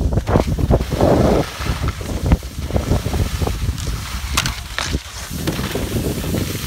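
Wind buffeting the microphone of a camera carried by a skier moving downhill, a heavy uneven rumble, with skis hissing and scraping over packed snow.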